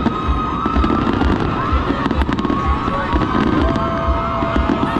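Fireworks going off continuously: rapid low booms about two or three a second under dense crackling, with whistling tones above.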